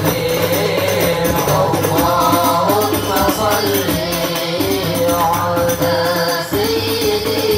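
Boys' voices singing an Islamic sholawat in qasidah style into microphones, a wavering melodic line, accompanied by hand-played frame drums (rebana) with a jingling rattle.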